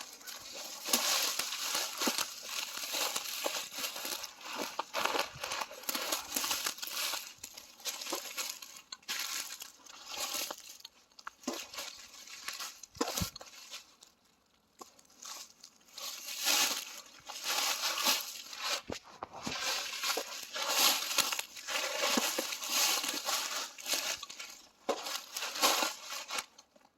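Footsteps crunching and rustling through dry leaves and brush, with sharp cracks of twigs snapping, in irregular stretches with brief lulls about halfway through.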